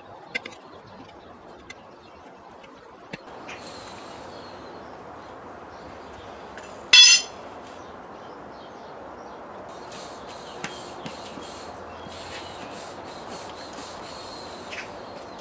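Birds chirping in short high-pitched calls, briefly a few seconds in and then repeatedly through the second half. About seven seconds in, a steel tyre lever clangs down once, sharp and ringing, the loudest sound. There are a few faint clicks near the start.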